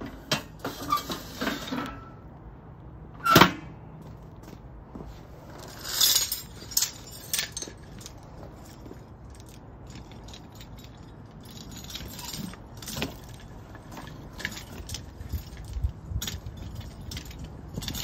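Gas burner of a home-made foundry furnace running with a steady rush, under metal clanks and chain rattles as the furnace lid is opened and chain-hung crucible tongs are handled. One sharp clank comes about three seconds in, and a cluster of clanks follows around six to seven seconds.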